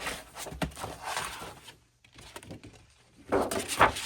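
Cardboard and paper album packaging being handled: rustling and light knocks as the photo book's cover is slid back on, with a short lull in the middle and louder knocks near the end.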